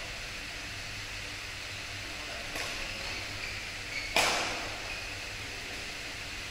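Badminton racket strokes on the shuttlecock in a large, echoing sports hall: a faint hit about two and a half seconds in and a loud, sharp hit about four seconds in that rings on in the hall, over a steady hall hiss.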